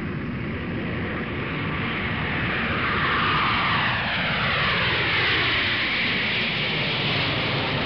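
Airplane flying past, its engine noise growing louder and then several tones of engine whine falling in pitch together as it passes, from about three seconds in.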